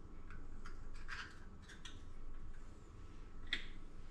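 Eggshell being handled over a mixing bowl after cracking an egg: a run of faint light clicks and crackles, then a sharper click about three and a half seconds in.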